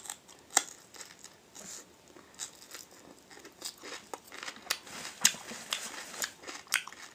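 A person biting and chewing grilled wild leek, a bit hard to chew: a run of short, irregular crunches and clicks from the mouth.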